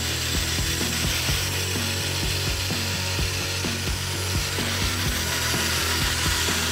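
Electric motors and plastic gear train of a brick-built remote-control Jeep Wrangler running as it drives over pavement: a steady hum under a fast, irregular ratcheting clatter.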